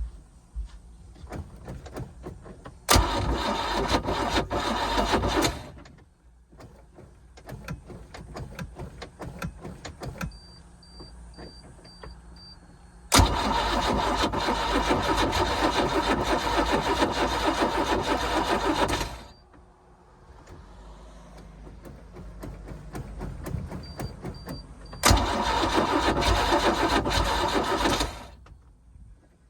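Starter cranking a MerCruiser 4.3 V6 boat engine three times, each attempt beginning with a sharp click and lasting about three, six and three seconds, without the engine catching; the owner suspects heat soak after a starter swap. A short run of high beeps comes just before the second and third attempts.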